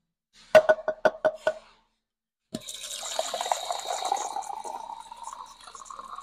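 A few sharp clicks, then water pours from a countertop drinking-water tap into a plastic cup from about two and a half seconds in, the pitch of the filling rising steadily as the cup fills.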